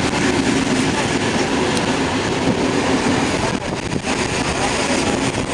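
Railway passenger coaches rolling past close by as the train pulls out of the station, their steel wheels running steadily on the rails.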